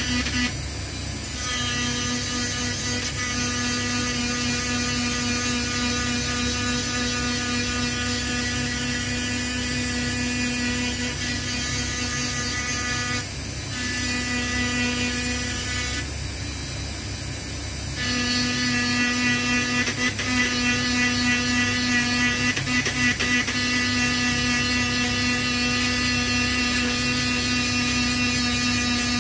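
Small high-speed electric power tool, like a rotary tool, running steadily with a buzzing hum, abrading a metal knife ferrule. Its note changes briefly about a second in and twice more in the middle as it bears on the work.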